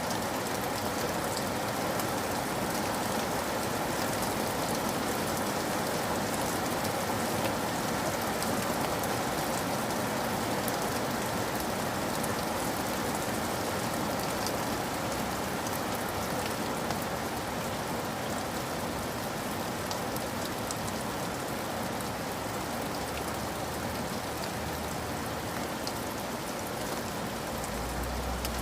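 Steady rain falling, an even hiss of water with many fine drop ticks pattering on surfaces.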